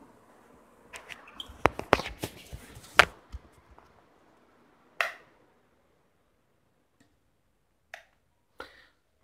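A quick flurry of sharp clicks and knocks for about two and a half seconds, then a single knock a little later and two fainter ticks near the end.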